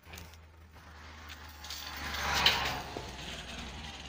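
A motorcycle passing close by, its engine noise swelling to a peak about two and a half seconds in and then fading as it pulls away, over a steady low rumble.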